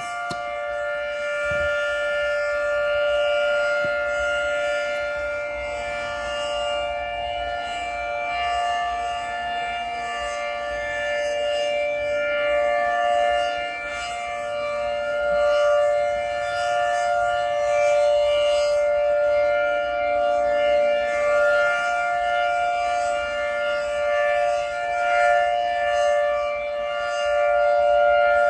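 Federal Signal 2T22 dual-tone outdoor warning siren sounding a steady two-note chord for its weekly test, the pitch held flat while the loudness swells and fades every few seconds as the siren head rotates.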